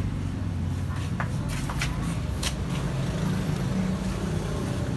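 Steady low hum of a running vehicle engine, with a few sharp clicks between about one and two and a half seconds in as the brake caliper bolt is worked with a tool.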